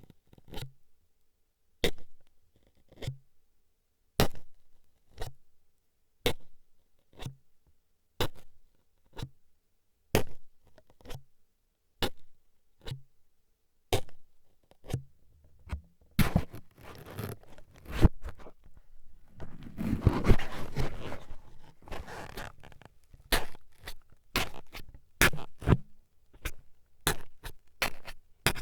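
Toothpick jabbing into the ear of a binaural ASMR microphone. Sharp clicks come about once a second, then a few seconds of denser scratching and rustling just past the middle, then quicker taps near the end.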